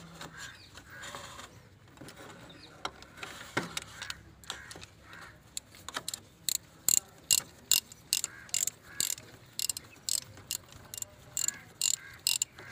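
Socket ratchet on a 12 mm socket clicking as it is worked back and forth, loosening the water pump bolts. Faint ticking at first, then sharp, loud clicks about twice a second from about halfway through.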